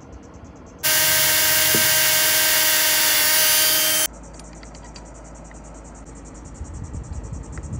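Milwaukee cordless drill running at a steady speed, boring the marked hole through a copper clevis pin held in a bench vise; the whine starts about a second in and stops abruptly about four seconds in. Crickets chirp quietly before and after.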